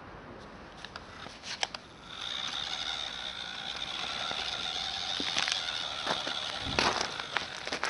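Small battery-powered electric motor of a cheap toy RC off-road truck whining steadily as it drives, starting about two seconds in after a few light clicks. A short loud scuffing noise comes near the end.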